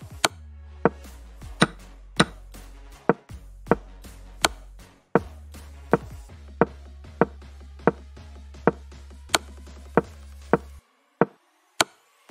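Chess move sound effects from an online board: a sharp click every half-second to second as pieces are moved, over background music with a steady low bass. The music drops out near the end while the clicks go on.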